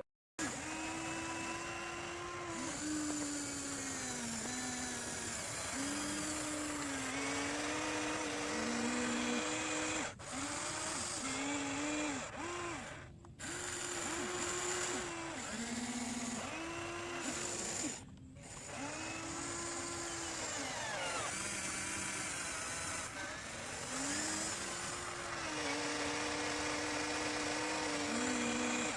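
Radio-controlled excavator's electric motors whining as it digs, the pitch gliding up and down and stepping between levels as the arm and bucket are worked, broken by a few short gaps.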